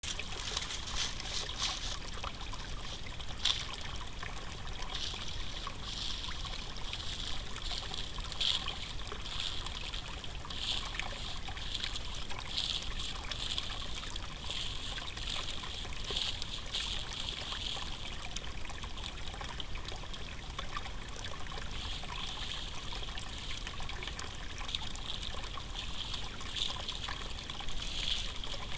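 Shallow rocky creek trickling steadily over stones, with a continuous bubbling hiss.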